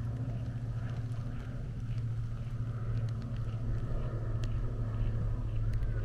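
A vehicle engine running with a steady, low drone.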